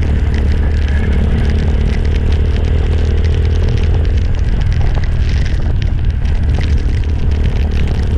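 Motorcycle engine running at a steady speed on the move, a constant low hum with crackling wind noise on the microphone.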